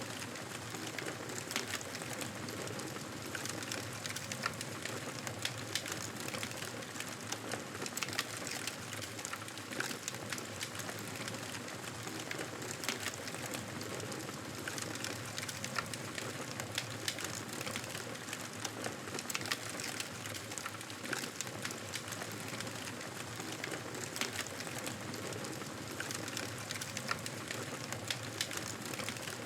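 Wood fire crackling in a fireplace: frequent small irregular pops and crackles over a steady hiss.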